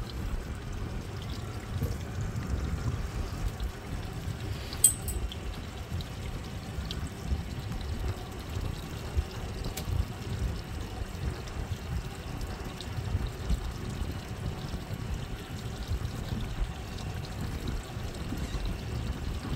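Seawater sloshing and lapping steadily against the hull of a small boat, with one sharp click about five seconds in.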